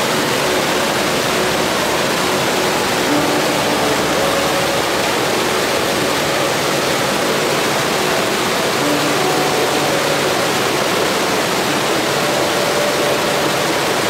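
A stream cascading over boulders: a steady, loud rush of white water.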